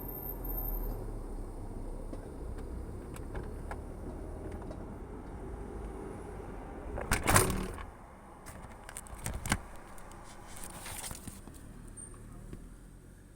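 Steady low rumble, a constant noise laid over distant traffic. About seven seconds in, a loud clattering rustle, after which the rumble is much fainter; a few clicks and a second brief rustle follow.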